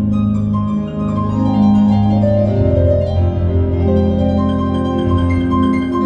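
Solo piano improvisation: low bass notes held under many overlapping, ringing notes that move through the middle and upper range.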